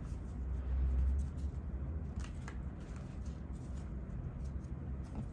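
A deck of tarot cards being shuffled by hand, with soft rustling and a few light clicks, over a low rumble that swells about a second in.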